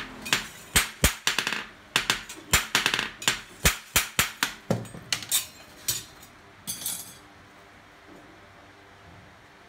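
A hand hammer strikes a gyuto chef's knife blade on a steel post anvil, sharp metal-on-metal blows in a steady run of about three a second. The blows stop about six seconds in.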